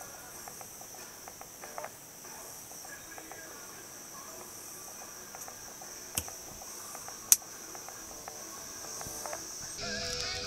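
Seasoning shaker bottle being worked over raw chicken: light scattered clicks and two sharp clicks about six and seven seconds in, the second the loudest. Under them runs a steady high-pitched insect-like trill.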